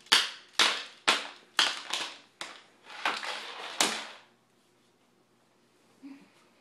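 A baby's hands slapping a hardwood floor while crawling fast: sharp smacks about two a second for about four seconds, then quiet.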